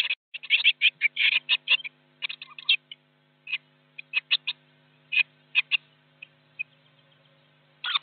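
Blue tit nestlings calling inside the nest box: rapid high-pitched cheeps that come thick for the first three seconds, thin out to scattered single calls, and pick up again in a burst near the end. A faint steady hum runs underneath.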